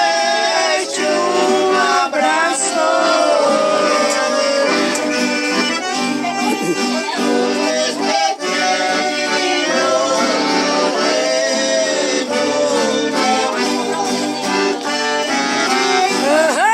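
Music playing: a melody over sustained chords.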